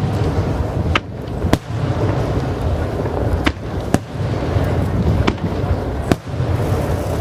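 Aerial fireworks shells bursting: about six sharp bangs at uneven intervals, over a continuous low rumble from the show.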